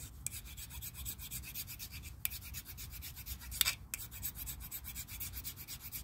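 A hand file rasping back and forth over the brake-pad lining of a Whirlpool washing machine's spin clutch, in quick even strokes with a couple of brief pauses. The pad is being filed flat to even out cuts worn into it, a temporary fix for a loose clutch that leaves the tub unable to spin.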